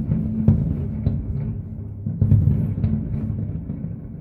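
Fireworks shells bursting one after another in a continuous low rumble of booms, with sharper bangs about half a second in and a cluster just past two seconds.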